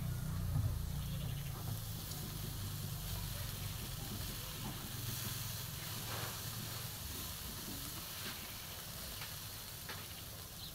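Beef sizzling steadily on a charcoal grill, with a few faint clicks of metal tongs as the meat is turned.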